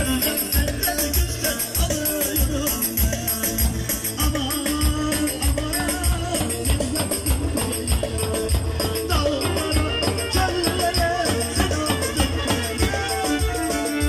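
Live Turkish folk dance music: a davul bass drum beating a steady, driving rhythm under a wavering melody and singing.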